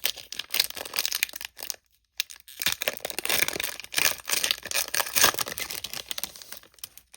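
Foil trading-card pack wrapper being torn open and crinkled, in two stretches of crackling with a short pause about two seconds in.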